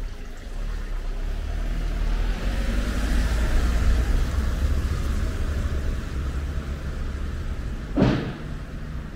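A motor vehicle passing close by on a wet street: a low engine rumble and tyre hiss that swell and then ease off. About eight seconds in, a single sharp thump.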